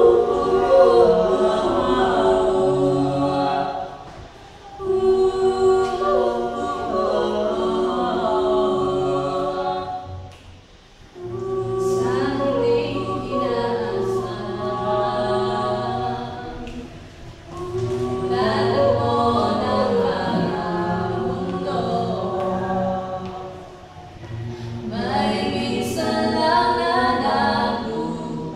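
A small mixed group of men's and women's voices singing a cappella in parts from sheet music, in long held phrases with short breaks for breath about every six or seven seconds.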